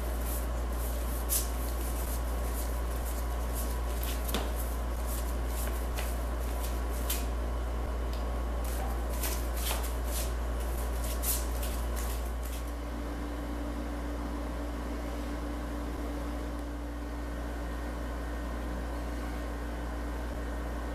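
Steady low workshop hum with scattered light clicks and taps as glue is spread by hand over hardboard sheets for laminating. About 12 seconds in the tapping stops and a steady low tone joins the hum.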